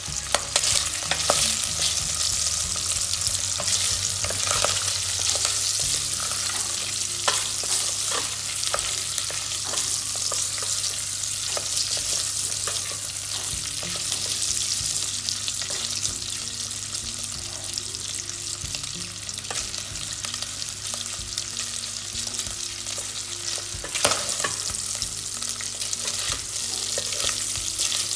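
Diced bacon sizzling in sunflower oil in a stainless steel pot over gentle heat, stirred with a wooden spatula. A steady hiss with scattered sharp clicks, one louder one near the end.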